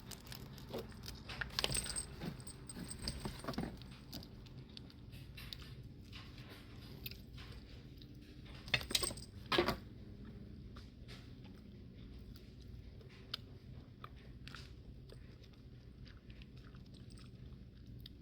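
Crawfish being eaten up close: scattered crunches and clicks of shell being cracked and peeled, with chewing. Two louder spells of cracking come about two seconds and nine seconds in.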